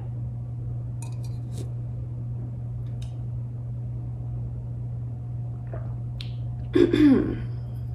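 Quiet room with a steady low electrical hum, a few faint clicks as a ceramic mug is handled while she sips from it, and a brief voice sound near the end.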